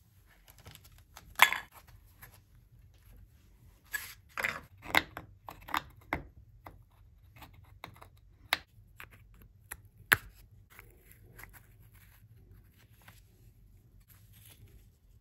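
Small metal motorcycle part with a rubber insert being worked by hand on sandpaper and with a pick: scattered scrapes, clicks and taps. The sharpest taps come about a second and a half in and about ten seconds in, with a run of short scrapes between about four and six seconds.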